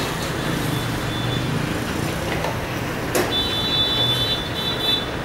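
Steady background noise of motor vehicles running, with a low hum. About three seconds in there is a sharp click, followed by a high steady whine that lasts a little under two seconds.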